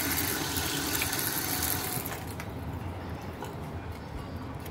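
Kitchen tap running, water splashing in the sink with a steady hiss that is loudest for the first two seconds and then dies down.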